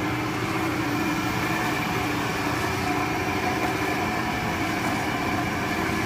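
Steady mechanical hum of a silo unloader and feed conveyor running, with a few steady tones over it, as corn silage comes down the silo chute.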